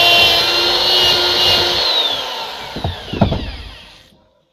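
Electric drill boring a hole right through a fresh aspen stick: the motor runs steadily under load for about two seconds, then winds down with falling pitch and fades out. A couple of knocks come about three seconds in.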